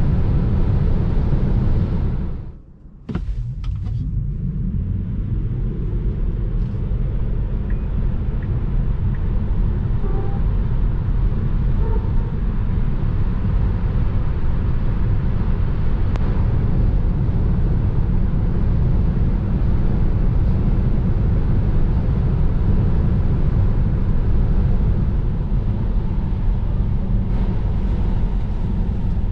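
Steady low rumble of road, tyre and wind noise inside the cabin of a Tesla Model 3, an electric car, travelling at highway speed. The noise drops out briefly about two and a half seconds in and comes back with a click.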